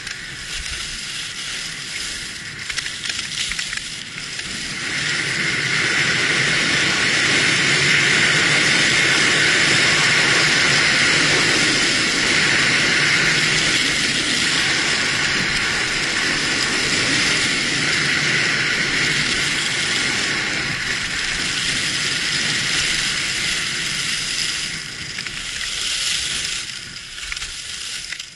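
Skis hissing and scraping over firm groomed snow during a fast descent, with wind rushing over the microphone. The sound grows louder about five seconds in and eases off a few seconds before the end.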